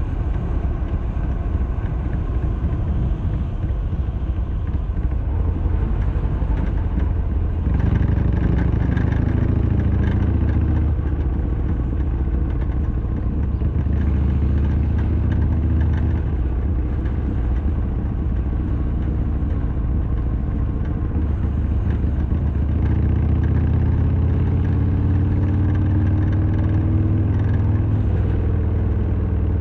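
Harley-Davidson Sportster XL1200R's air-cooled V-twin running under way. It is mostly road and wind noise at first, the engine note comes up strongly about eight seconds in, and it climbs in pitch near the end as the bike accelerates.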